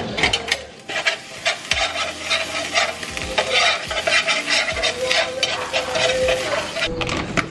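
Crab meat sizzling in a hot nonstick frying pan while being stirred and broken up, with repeated short scraping strokes of a utensil against the pan.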